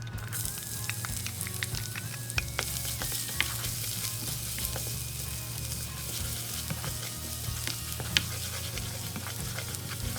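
Food frying in hot oil in a pan, a steady sizzle, with scattered sharp clicks of a utensil against the pan as it is stirred.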